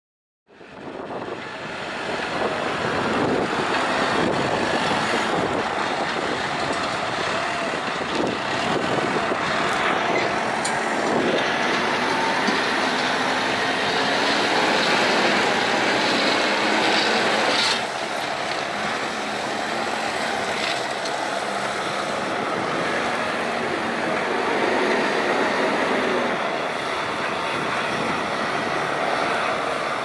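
Terex TLB890 backhoe loader's diesel engine running hard under load while it works gravel, a dense steady mechanical noise that comes in sharply just after the start and drops slightly about eighteen seconds in.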